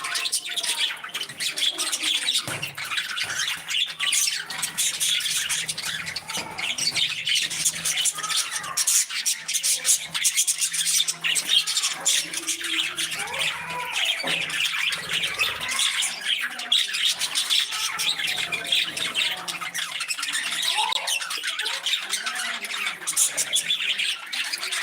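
A flock of budgies chattering and warbling continuously, with many rapid overlapping chirps and squawks.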